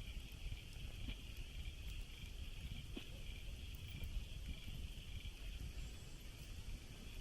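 Night chorus of crickets: a steady, high shrill with no breaks, over a low rumble of wind on the microphone.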